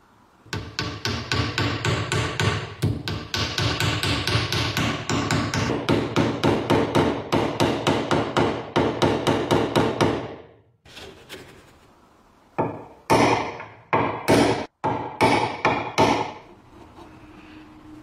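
Hammer tapping on a small wooden block held on a wooden workpiece: a quick run of steady taps, about four or five a second, for roughly ten seconds, then after a short pause a slower run of about eight louder blows.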